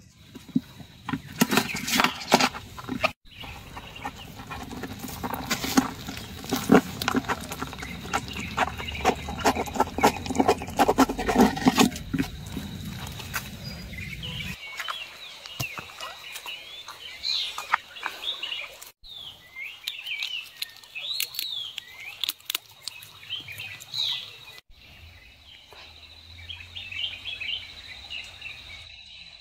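Close rustling and crackling as a pet ferret moves about in leaf litter, dense for about the first half and stopping abruptly. After that, birds chirp in short calls over a faint steady high whine.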